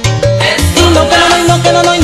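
Salsa orchestra playing an instrumental passage: a bass line moving note by note under keyboard and horn chords, over a steady percussion beat.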